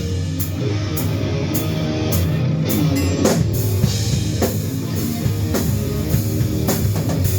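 Rock music in an instrumental stretch between sung lines: a drum kit keeps a steady beat under guitar, with no singing.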